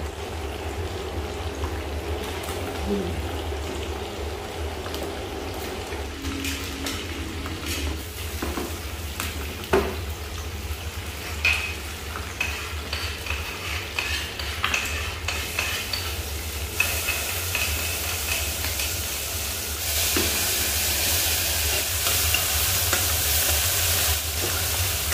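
Short mackerel sizzling as it fries in oil in a frying pan, with a metal spatula scraping and clicking against a steel saucepan as its yellow spice mixture is stirred. The sizzle gets louder about two-thirds of the way through, over a steady low hum.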